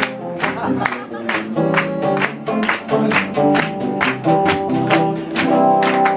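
A small live band of bass guitar, guitar and drums playing an upbeat tune, with the audience clapping along in time on the beat.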